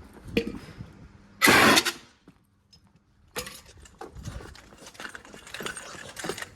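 Footsteps and handling noises of people moving about, with a loud half-second burst of noise about one and a half seconds in. The burst is followed by a moment of near quiet, then irregular light knocks and clicks.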